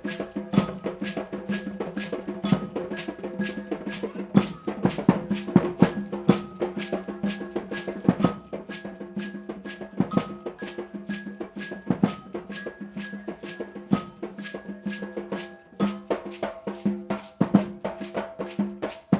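Percussion music: drums struck in a steady, fast beat over a held drone.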